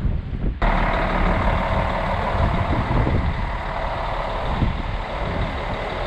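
A motor vehicle's engine running close by: a steady mechanical hum over low rumble, coming in abruptly about half a second in.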